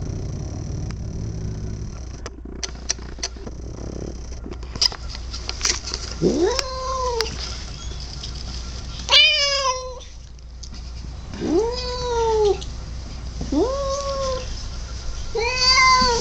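Domestic cat giving five drawn-out yowling meows in the second half, each rising in pitch and then sliding back down. A few light clicks come before the first call.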